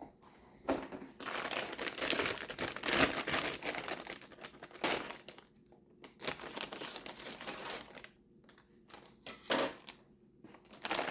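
Plastic packaging crinkling and rustling in irregular bursts as power-supply cables are unpacked and handled, busiest in the first half.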